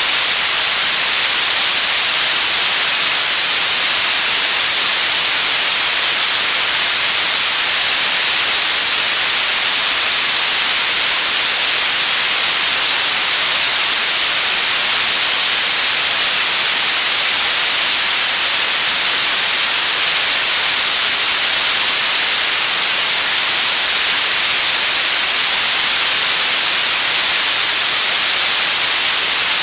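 TV static: a steady, loud hiss of white noise, strongest in the high range, unchanging throughout.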